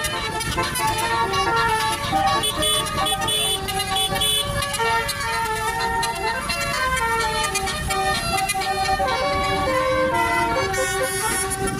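Tour bus's basuri-type telolet musical horn playing a melody, its notes stepping from one held pitch to the next.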